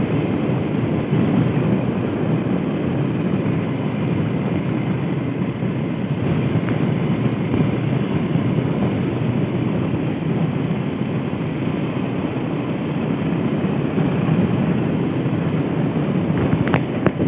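Motorcycle running steadily while being ridden, its engine mixed with road noise and wind rushing past the microphone.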